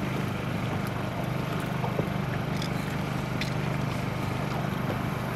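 Boat's motor running steadily, a low even hum with no change in speed.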